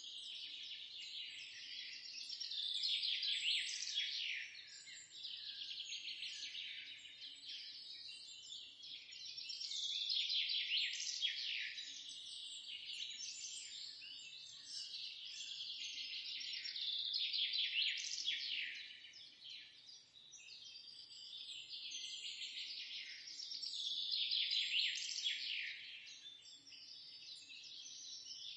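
Birdsong: a dense chorus of overlapping chirps and twitters that swells louder and fades back about every seven seconds.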